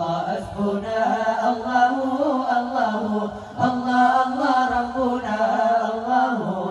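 Group of voices chanting dike Aceh, the Acehnese devotional recitation, in unison on a steady held pitch, in long phrases with short breaks between them.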